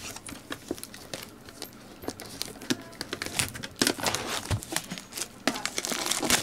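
Clear plastic shrink wrap crinkling and tearing as fingers pull it off a Pokémon trading card tin. It is a run of small crackles that grows denser and louder about halfway through.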